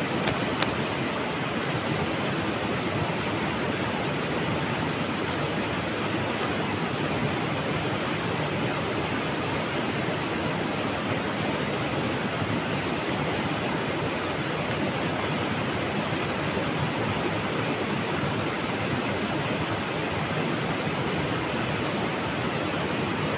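Steady rush of river water running over and between rocks, an even unbroken noise, with a single sharp click just under a second in.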